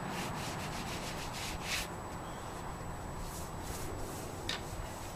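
A sponge rubbing over flagstone and fresh mortar joints in repeated, irregular scrubbing strokes. The mortar is being sponged smooth and cleaned.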